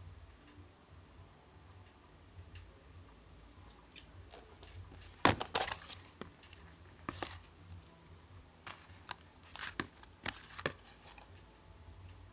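Toys being handled close to the microphone: scattered sharp clicks and crackles, loudest in a quick cluster about five seconds in and again in a run of several clicks later, over a low steady hum.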